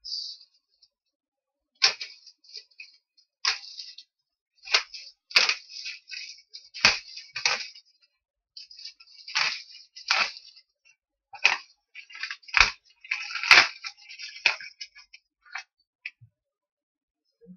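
Clear plastic wrap crinkling and tearing as a hand pulls it off a cardboard box: irregular crackles with sharp snaps, stopping and starting.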